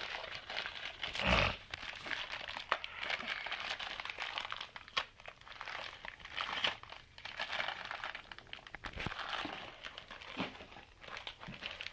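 Packaging crinkling and crackling as it is handled and pulled open by hand, with a louder knock about a second in.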